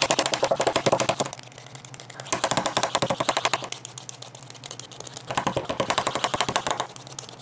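Vegetable peeler scraping skin off a russet potato in rapid, scratchy strokes. It comes in three bursts, with short pauses between them as the potato is turned.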